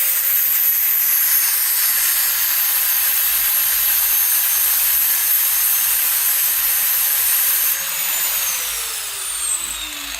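4-inch angle grinder with a flap sanding disc grinding the peened end off a steel roller chain pin, running steadily with a high whine. About three-quarters of the way through it is switched off and winds down, its whine falling in pitch.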